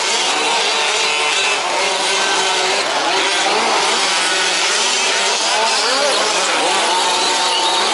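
Several 1/5-scale RC trucks' small two-stroke petrol engines racing together, a dense buzzing of engines whose pitches keep rising and falling as they rev and back off.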